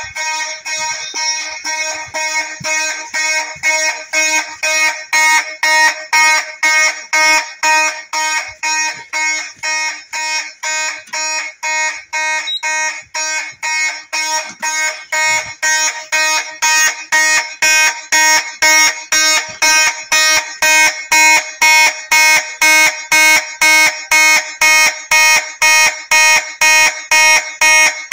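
Fire alarm horn sounding in evenly pulsed blasts of a steady buzzing tone, about two a second, the march-time pattern of a fire alarm evacuation signal. It cuts off suddenly near the end.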